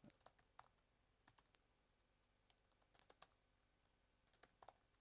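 Faint keystrokes on a laptop keyboard: scattered soft clicks in short runs as commands are typed.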